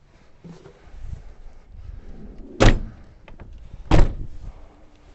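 Two heavy slams a little over a second apart, truck doors being shut, with some handling and shuffling noise around them.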